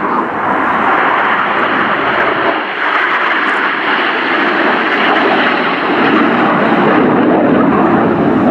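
Four BAE Hawk T1 jets flying overhead in close formation, their Adour turbofan engines giving a steady, loud jet noise.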